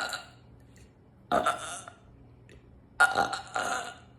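A woman burping: the end of one burp right at the start, a short burp a little over a second in, and a longer burp at about three seconds that breaks briefly in the middle.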